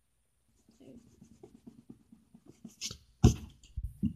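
A lump of Play-Doh being handled on a round plate: soft rubbing and small clicks, then a few dull thumps from about three seconds in as it is pressed down onto the plate.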